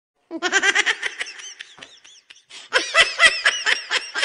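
A man laughing in two runs of quick ha-ha pulses; the second run starts about two and a half seconds in and is louder.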